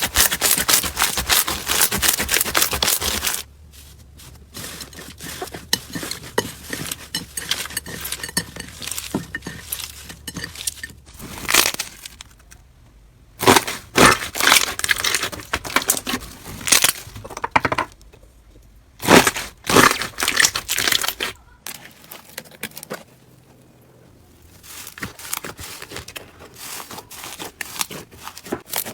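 Hands squeezing and pressing crunchy slime, giving dense crackling and popping. It comes in several separate clips, with louder bursts of crunching around the middle.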